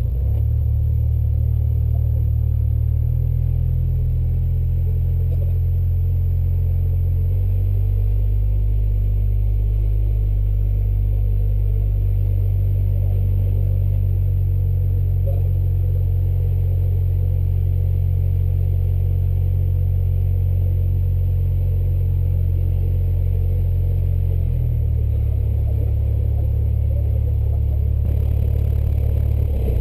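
Cessna 172's piston engine and propeller heard from inside the cabin, running at low taxi power as a steady low drone. Its pitch shifts several times as the power changes.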